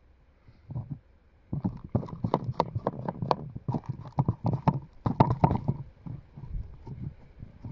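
Hands handling the wooden boards of a ground trap and the gravelly soil around them: a quick, irregular run of knocks, taps and scrapes, starting about a second and a half in and stopping about two seconds before the end.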